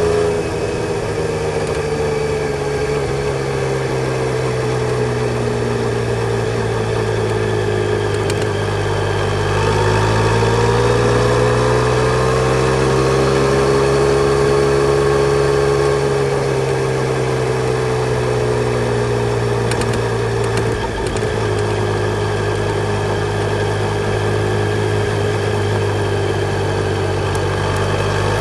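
Yamaha Tracer 900 GT's three-cylinder engine running at steady mid revs. The pitch rises a little about ten seconds in and eases back around sixteen seconds, with a brief dip around twenty-one seconds.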